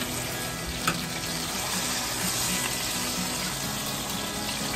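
Hot grease sizzling steadily in a stainless-steel frying pan where flour-coated cube steak is pan-frying, with a brief tap about a second in.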